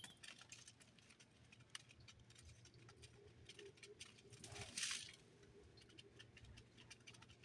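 Small birds pecking and hopping at a seed feeder: faint, scattered ticks and taps, with a brief rustle about five seconds in.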